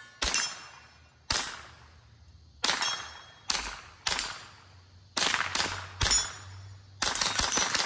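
Ruger 10/22 semi-automatic .22 LR rifle firing about a dozen shots, each trailing off briefly. The shots come singly about a second apart at first, then closer together, and end in a quick burst of several shots near the end.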